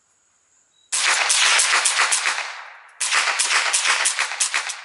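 Suppressed Ruger 10/22 takedown rifle firing .22 LR in two quick strings of shots, the first starting about a second in and the second after a short pause. The bulk ammunition sits right at the speed of sound, so about half the rounds give a sharp supersonic crack and the rest don't.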